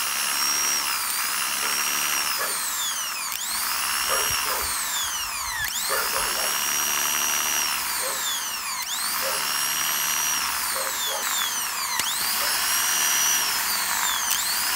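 Volkswagen Transporter T4 starter motor spinning freely on the bench under battery power, a high electric-motor whine whose pitch jumps up and then falls away, again about every three seconds. This is its test run after new brushes were fitted, and it shows the motor working.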